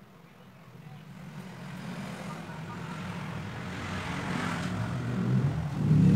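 A motor vehicle's engine running and growing steadily louder, loudest near the end.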